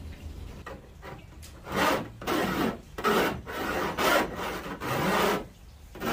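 Hand file rasping back and forth along the freshly cut sheet-metal edge of a window opening in a van wall, deburring the sharp edge: a couple of faint strokes, then about seven firm strokes of roughly half a second each, the last one near the end.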